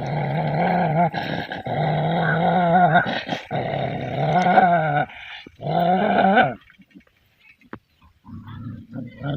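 A dog growling in long, loud stretches that break off briefly a few times. The growling stops about six and a half seconds in, after a last stretch that rises in pitch at its end.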